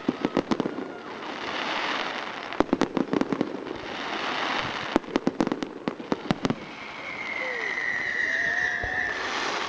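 Fireworks salute going off: three quick volleys of sharp bangs, each followed by a swelling crackling hiss. Near the end a long whistle sounds, falling slightly in pitch.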